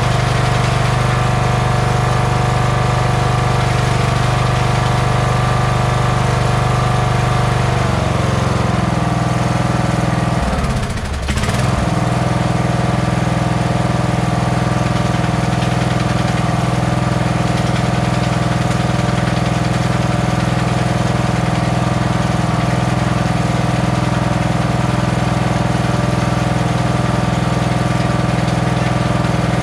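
Kohler engine of a Toro LX460 lawn tractor running steadily at idle. Its note drops slightly about eight seconds in, sags briefly around eleven seconds, then settles back to an even run.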